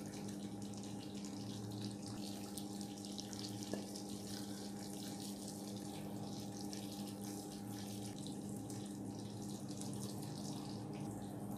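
A steady electrical hum in the background, with faint scrapes and light clinks of a serving spoon as thick chicken curry is spooned onto a plate; one clearer clink about four seconds in.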